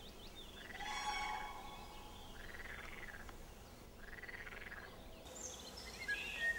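Frogs croaking faintly: three short, rattly calls about a second and a half apart, with a few faint bird chirps.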